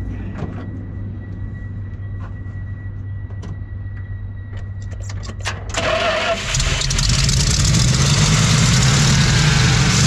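Carbureted Dodge Ram truck engine running on gas poured down the carburetor throat, with a low steady hum and a few light clicks, then picking up about six seconds in and running much louder. The mechanical fuel pump is dead, so the engine has only the poured-in fuel to run on.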